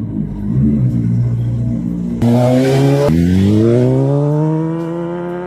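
Honda CBR600RR inline-four engine running and being revved, in edited cuts: a steady note, an abrupt change about two seconds in, then the engine note climbing steadily in pitch and levelling off.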